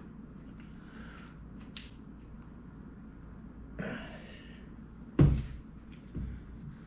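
Parts of a Barnett XP385 crossbow being handled and fitted together: scattered small plastic and metal clicks, a short scrape, and one sharp knock a little after five seconds in, followed by a softer one.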